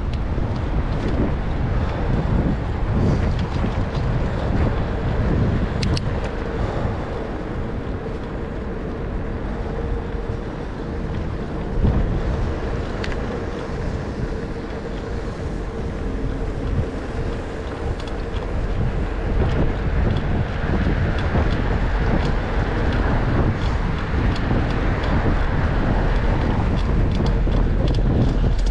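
Wind buffeting the microphone of a camera carried on a moving bicycle, a steady low rumble with a faint steady hum under it and a few light ticks.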